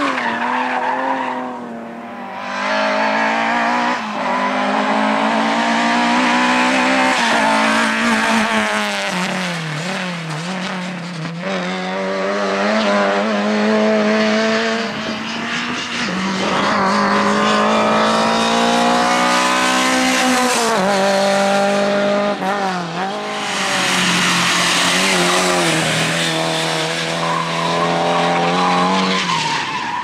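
Rally cars driven hard on tarmac: engines rev up and drop back again and again as they shift and slide, with tyres squealing through the corners. First a BMW E30 drifts, then Lada saloons pass.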